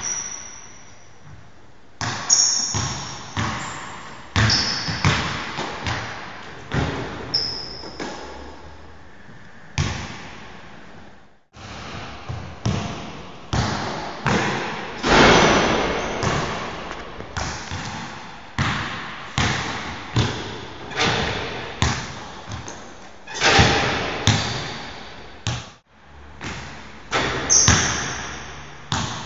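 A basketball being dribbled on an indoor court, a steady run of bounces, each one echoing in the large hall, with a few short high squeaks.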